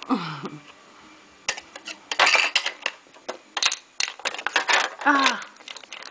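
Hard plastic pieces of a dog treat puzzle clattering and rattling as a pet fox noses and knocks the cups over, in quick clusters of clicks and knocks. A short falling cry opens it, and a man exclaims "Ah!" near the end.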